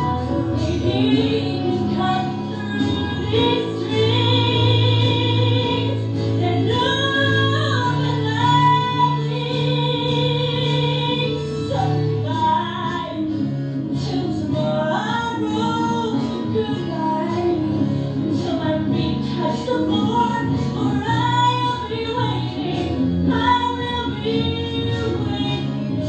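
A woman singing a musical-theatre song live, accompanied by piano and a small band, with long held notes sung with vibrato about four and nine seconds in.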